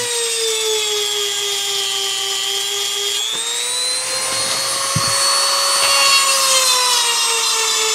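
EzzDoo handheld rotary sharpener spinning a diamond bit against a chainsaw tooth, a steady high whine. Its pitch slowly drops, jumps back up about three seconds in, then eases down again as the bit is pressed into the tooth.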